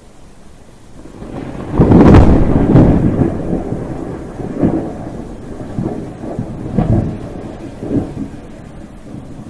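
A thunderclap over steady rain: a low rumble builds to a loud crack about two seconds in, then rolls on in several lesser peaks and dies away near the end.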